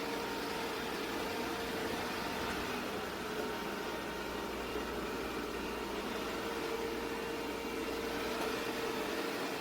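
ECOVACS DEEBOT X9 PRO robot vacuum running, a steady motor hum with a constant mid-pitched tone over even noise.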